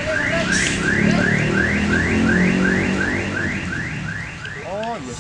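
An electronic alarm chirping in upward pitch sweeps about three times a second, stopping shortly before the end, over the low rumble of an idling Hino RK8 R260 diesel bus engine.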